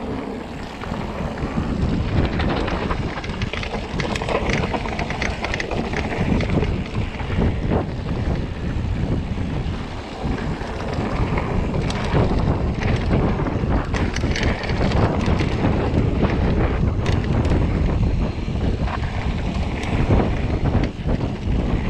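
Mountain bike descending a dirt trail at speed: wind buffeting the microphone over the rumble of knobby tyres on dirt, with frequent sharp clicks and rattles from the bike over bumps.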